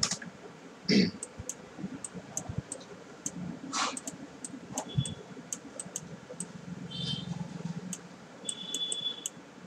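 Faint, irregular clicking of a computer mouse, with a louder knock about a second in.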